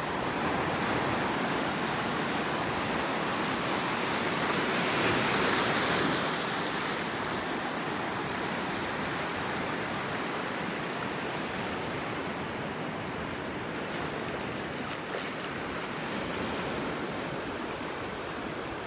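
Ocean surf washing in over black rocks and a shallow reef: a steady rush of moving water that swells louder about five seconds in as a wave breaks and washes through, then settles back.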